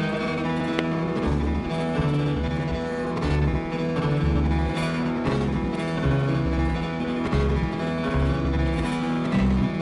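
Background instrumental music with plucked guitar over a low bass line.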